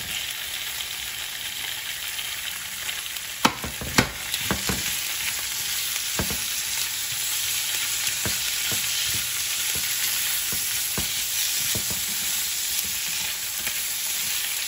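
Fresh wood ear mushrooms and fried tofu sizzling in oil in a nonstick frying pan as they are added and stirred, with sharp knocks on the pan, the two loudest about three and a half and four seconds in. The sizzle grows a little louder after that.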